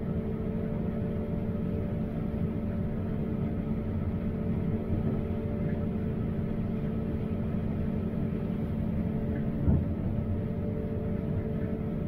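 Steady drone of a combine harvester's engine and machinery heard inside the closed cab: a low hum with a few steady tones, and one brief knock about ten seconds in.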